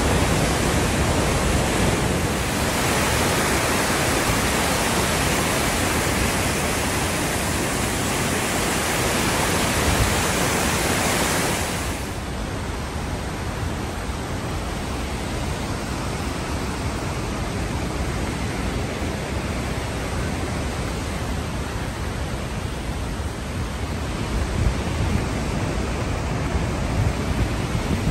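Multnomah Falls, swollen by heavy rain, making a loud, steady rush of falling water. About twelve seconds in it cuts to a slightly quieter, steady rush of water, with a few low bumps near the end.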